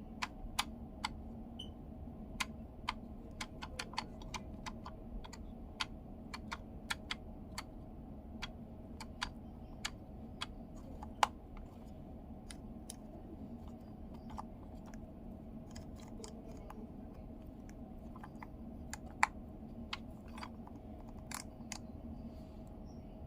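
Scattered small clicks and taps from handling the plastic parts of a Mazda multimedia commander control unit, irregular and light, with two sharper clicks about eleven and nineteen seconds in, over a steady low hum.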